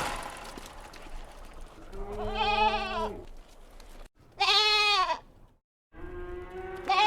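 Young goats bleating: three separate bleats, each about a second long with a wavering pitch, with the sound dropping out abruptly between them.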